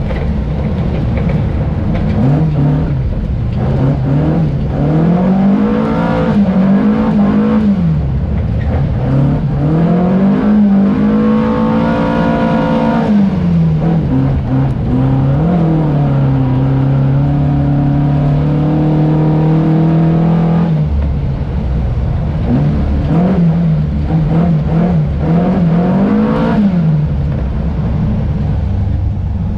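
Volvo 242 rally car engine, heard from inside the cabin, revving up and falling back again and again through the gears and corners on a snow stage. Its pitch holds steady for several seconds in the middle, and near the end comes a run of quick rises and falls.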